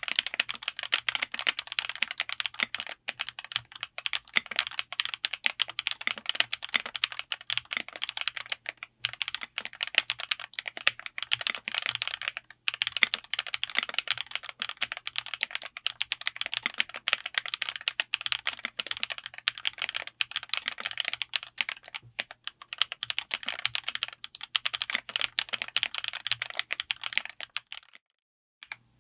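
Fast continuous typing on a mechanical keyboard with Ice Kachang linear switches, an FR4 plate and an aluminium case: a dense run of quick key clacks with a few short breaks, stopping shortly before the end.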